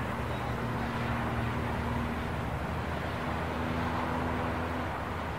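Steady low rumble of road traffic, with a low hum that sounds for about two seconds and again later.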